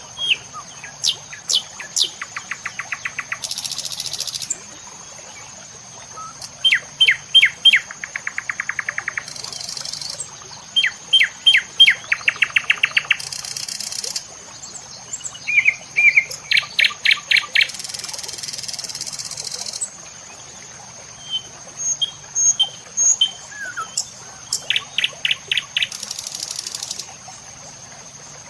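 Songbird singing in repeated phrases: a few sharp, falling whistled notes, then a rapid even trill, every few seconds. Short bursts of high hiss come between the phrases over a steady high-pitched whine.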